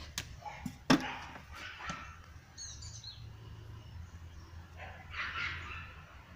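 Two sharp knocks in the first second, the second the loudest, then a few short high bird chirps about three seconds in, over a steady low hum.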